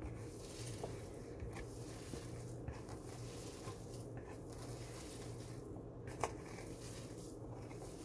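A hand squishing and kneading vegan wonton filling in a plastic mixing bowl: faint soft squelching that comes and goes with the squeezes, over a low steady hum, with one small click about six seconds in.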